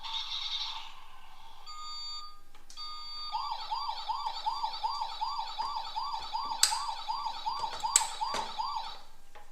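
Toy vehicle's electronic siren: a short run of steady electronic beeps, then a fast rising-and-falling siren tone, about three cycles a second, starting about three seconds in and stopping shortly before the end. Two sharp clicks come during the siren.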